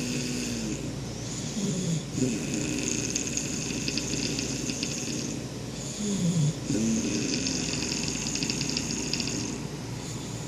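Snoring in slow, drawn-out breaths, two long ones and the tail of a third. Each breath is a fluttering, rattling rasp over a low tone that slides in pitch.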